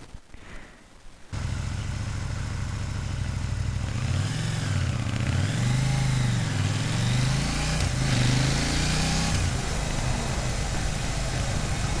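KTM 790 Duke's LC8c parallel-twin engine on its stock exhaust, starting up about a second in and running steadily. Its revs then rise and fall several times as the bike pulls away, before it settles to an even note near the end.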